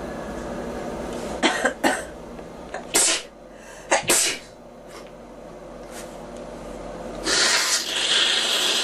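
A girl coughing: a quick run of three short, harsh coughs, then single coughs about a second apart, and near the end a longer hissing breath.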